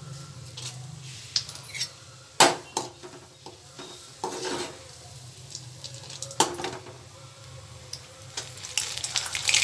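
Steel ladle stirring chana dal frying in hot oil in a kadai, scraping and knocking against the pan, with sharp knocks about two and a half and six seconds in. A sizzle grows louder near the end.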